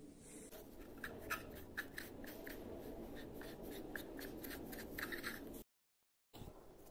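A hand rubbing quickly back and forth over a small wooden block, in short scratchy strokes about four a second. It cuts off abruptly about five and a half seconds in.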